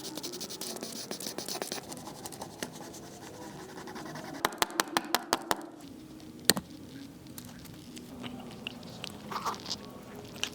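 Small metal clicks and light scraping from watchmaker's tools working on a Cartier calibre 1904 automatic movement. Partway through comes a quick run of about eight sharp clicks, and a single louder click follows a second later.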